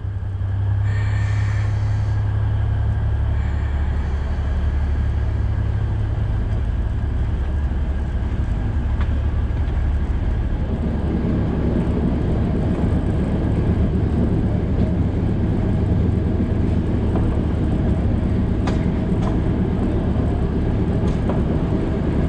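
Alishan Forest Railway narrow-gauge train moving off and running along the track: a steady low engine drone, with wheel-on-rail noise growing louder from about ten seconds in and a few sharp clicks over rail joints.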